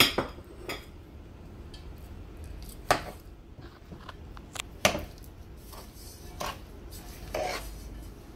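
Metal spoon stirring butter, sugar and condensed milk in a metal pot, scraping and knocking against the pot's side and bottom in irregular sharp clinks, the loudest at the start and around three and five seconds in.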